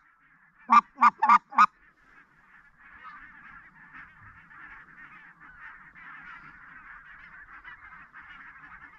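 Four loud, quick goose honks about a second in, most likely blown on a hunter's goose call to lure the birds. They are followed by the steady calling of a flock of wild geese further off, many voices overlapping.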